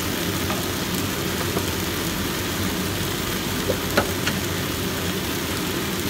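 Sweet potato leaves sizzling in a hot wok: a steady hiss over a steady low hum, with a few light clicks, the clearest about four seconds in.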